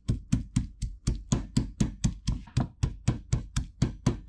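Stone pestle pounding in a stone mortar with steady, even strokes, about four a second, crushing fresh broadleaf thyme, scotch bonnet pepper and garlic into a seasoning paste.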